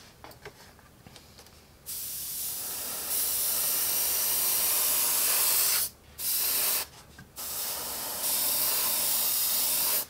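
Airbrush spraying a base coat of paint. The hiss starts about two seconds in and grows louder. It breaks off briefly twice near the middle, then carries on.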